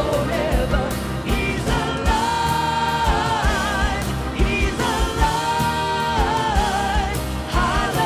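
A woman singing lead into a handheld microphone over a live worship band, holding two long notes with a wavering vibrato.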